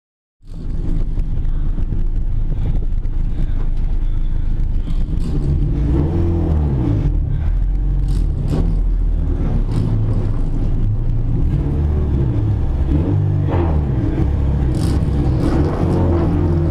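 2013 Honda Civic Si HPD touring race car's four-cylinder engine heard from inside its stripped cabin, running at low revs with its pitch rising and falling repeatedly. It starts about half a second in, with a few sharp clicks along the way.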